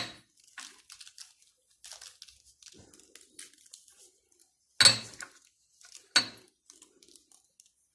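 Kitchen handling noise: a sharp knock right at the start and two more about five and six seconds in, with faint crinkling and rustling between them.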